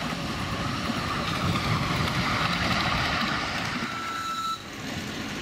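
Miniature railway train running along the track toward the listener: a steady rumble of wheels on rails that grows louder, with a brief thin squeal about four seconds in. The sound drops off suddenly about four and a half seconds in.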